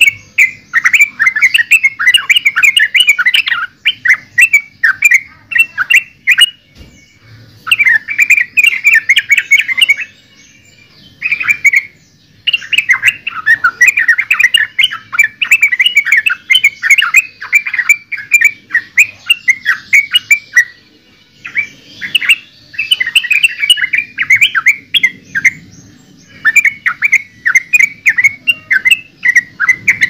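Yellow-vented bulbul (trucukan) singing: rapid runs of short chattering notes in bursts several seconds long, with brief breaks between them.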